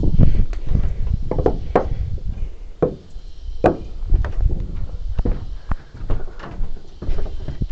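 Pieces of rough timber knocking and clunking together as they are handled, in irregular sharp knocks about once a second over a low rumble.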